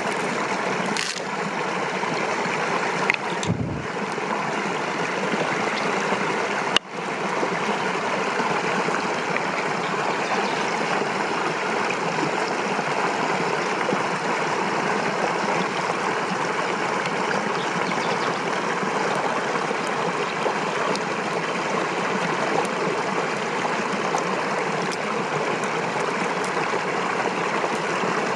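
Steady running water, a continuous even rush, with a sharp click and a brief dip about seven seconds in.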